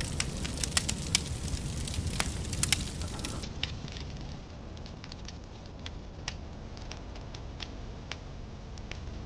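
Irregular crackling and popping over a steady low rumble, the crackles thinning out after about three seconds.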